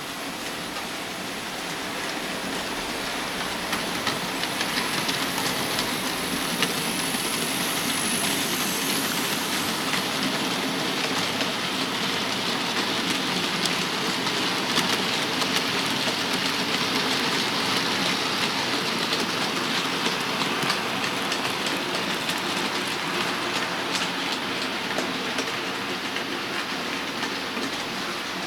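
OO gauge model train running along the layout's track: a steady rushing rumble of wheels on rail with many fine rapid clicks over the rail joints, building up over the first few seconds.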